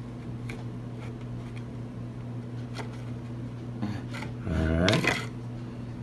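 Light taps and rustles of clear plastic deli cups and a paper towel being handled, over a steady low hum. About four and a half seconds in, a short wordless vocal sound with a rising pitch, the loudest thing heard.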